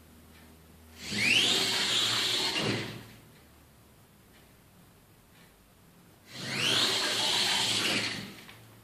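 Electric drive motors of a small wheeled competition robot whining as it drives across the table, twice. Each run starts with a quickly rising whine that then holds steady for about two seconds before dying away.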